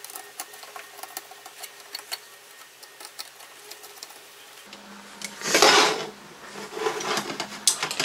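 Small screwdriver working the screw terminals of a Bluetooth amplifier board while speaker wires are changed over: a run of light, rapid ticks and scrapes. A little past the middle a faint low hum comes in. Then comes a brief, louder scraping rustle as the board and its wires are moved on the table.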